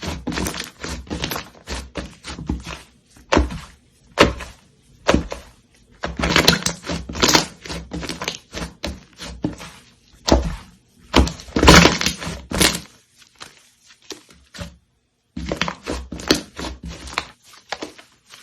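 Slime being worked by hand close to the microphone: irregular runs of short clicks, pops and crackles, with a brief pause about three-quarters of the way through.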